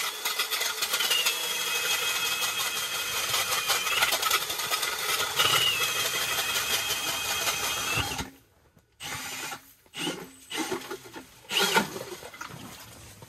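Power drill spinning an ice auger through the ice, a steady whine whose pitch sags briefly now and then as it bites. It stops suddenly about eight seconds in, followed by a few short bursts and knocks.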